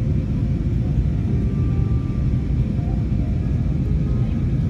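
Airliner cabin noise on an Airbus: a steady low rumble of engines and airflow heard from inside the cabin.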